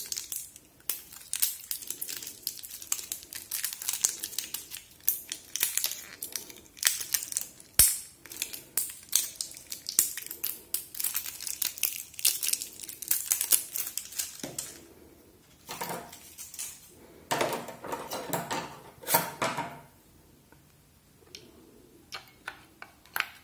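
Thin plastic wrapping crinkling and tearing as it is stripped off AA batteries by hand, in rapid irregular crackles, with heavier handling rustle later. Near the end come a few sharp clicks as the batteries go into a plastic battery compartment.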